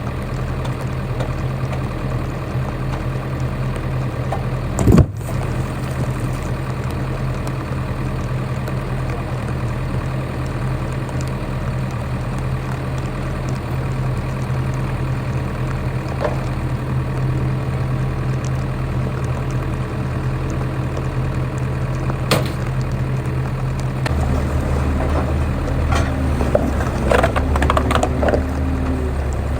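Engine of a small work machine running steadily, with a sharp knock about five seconds in. A few seconds before the end the engine note deepens, and a run of clanks follows.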